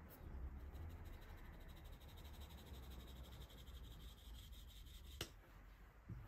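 Flour being sifted through a plastic mesh sieve into a glass bowl: faint, rapid scratchy ticking as the sieve is shaken, with one sharp click about five seconds in.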